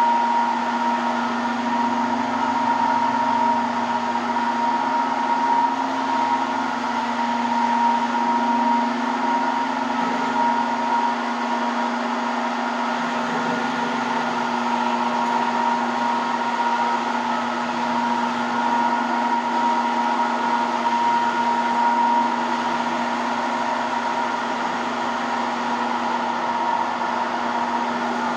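Electric marble and granite polishing machine running steadily, its motor giving a constant hum and a steady whine over a rush of noise.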